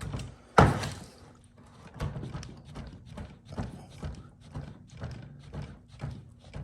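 Handling of plastic and metal toolbox parts: one sharp knock about half a second in, then a run of lighter, uneven knocks and clacks.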